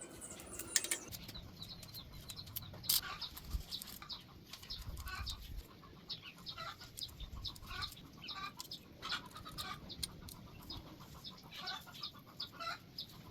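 Birds chirping repeatedly in short falling chirps over a low rumble, with a couple of sharp clicks in the first few seconds.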